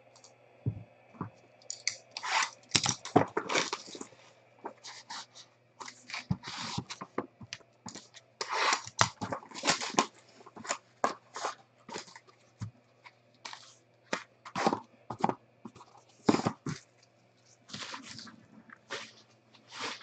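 Clear cellophane shrink-wrap being crinkled and torn off sealed trading-card boxes, in irregular crackling bursts for most of the stretch.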